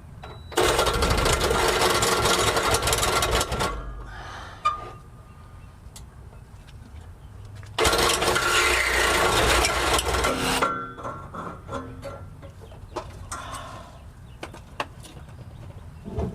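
A power cutting tool running in two bursts of about three seconds each as it cuts through the steel tubing of the stock exhaust pipe, with scattered clicks and knocks between and after the cuts.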